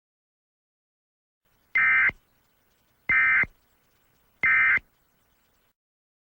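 Emergency Alert System end-of-message signal: three short, buzzy digital data bursts a little over a second apart, starting about two seconds in, marking the end of the alert.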